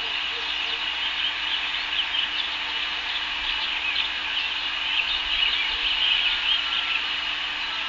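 Many small birds chirping over a steady hiss and a low, even hum.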